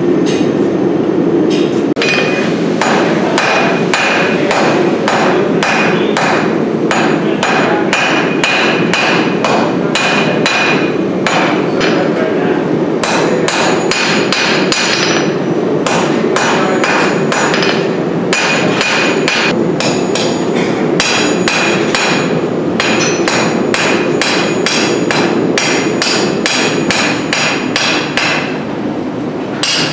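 Blacksmith's hand hammer striking red-hot steel on an anvil, a steady run of blows about two a second starting about two seconds in, with a few short pauses and a bright ring from the anvil on each strike.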